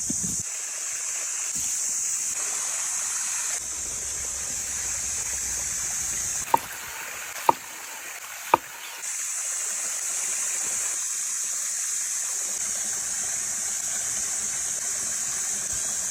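Steady sizzling hiss of food cooking over a campfire, with three sharp pops about a second apart midway through.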